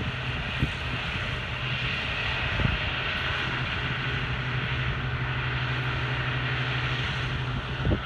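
Challenger self-propelled windrower running steadily as it mows the grass, a constant low engine drone.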